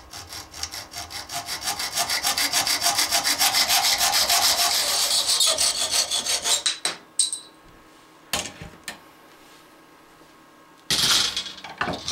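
Hacksaw cutting through an aluminium TV-antenna element clamped in a bench vise, in quick, even back-and-forth strokes that grow louder and then stop abruptly as the cut finishes. A few knocks follow, and a loud clatter comes near the end.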